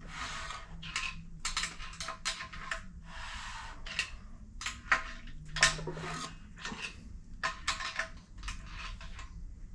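Irregular light metallic clicks and clinks from hand work on a Triumph 1.5 engine on its stand as it is turned over by hand to recheck the cam timing.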